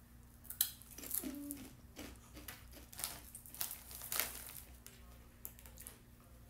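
Foil snack bag crinkling as a hand rummages in it, with crisp rolled corn chips being handled: a run of irregular crackles that thin out after about four seconds.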